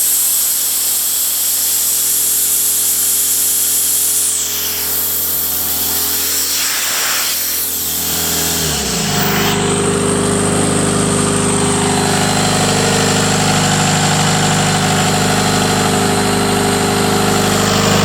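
Sullivan 210 portable air compressor running steadily; a little over half-way through, the engine's pitch drops and settles at a lower, fuller note.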